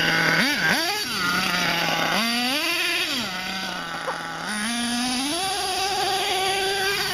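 HPI Savage X 4.6 nitro RC monster truck's small two-stroke glow engine idling, revved up and down in a few short throttle blips, then held at a higher steady pitch from about five seconds in while the truck drives.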